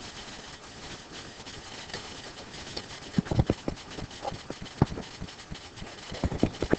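Scattered light taps and knocks over a steady room hiss, a stylus writing and tapping on an interactive whiteboard screen, most of the taps a little past the middle.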